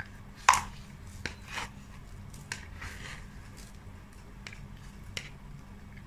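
Metal spoon clicking and scraping against a thin plastic cup while scooping ice cream, about half a dozen sharp clicks with the loudest about half a second in. Softer wet eating sounds come in between the clicks.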